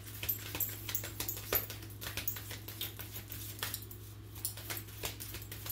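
A deck of cards being shuffled by hand: a quick, irregular patter of soft card clicks and taps, over a steady low electrical hum.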